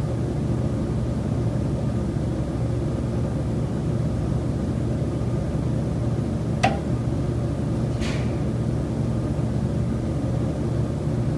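A steady low mechanical hum and rumble inside a high-rise condo unit, with a single sharp knock about two-thirds of the way through and a softer noise a second or so later. The knock is the recurring knocking from the building's common elements, which the tenant holds is not a normal building noise.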